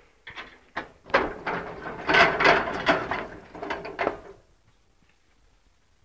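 Metal clattering and ratcheting from a portable band sawmill's mechanism: a few clicks, then a busy stretch of about three seconds that stops a little past the middle.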